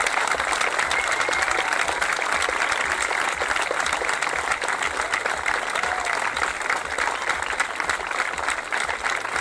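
Crowd applauding steadily, a dense patter of many hands clapping, easing off a little near the end.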